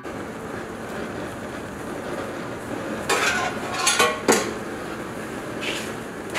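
Metal pans and utensils clattering on a gas range: a cluster of sharp knocks and clinks about three to four seconds in, over a steady kitchen hiss.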